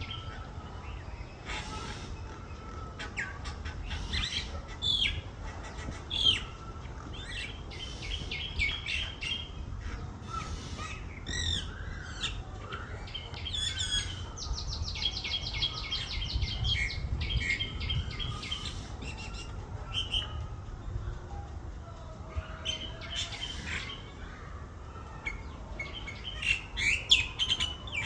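Young myna calling: a long run of rapid chirps, squeaks and whistles, with a fast buzzy trill of quickly repeated notes near the middle.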